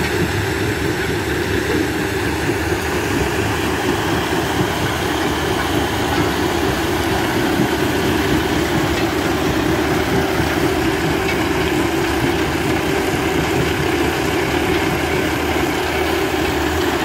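Rebel Crusher mobile jaw crusher running steadily while it crushes concrete blocks: a continuous machine din with dense rattling as crushed concrete pours off the discharge conveyor.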